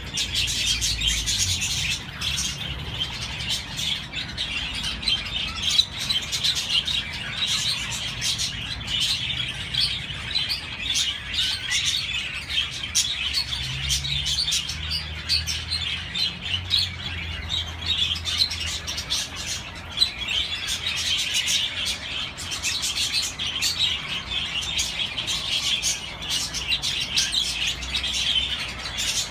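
Budgerigars warbling: a continuous, fast chatter of chirps, clicks and squeaks.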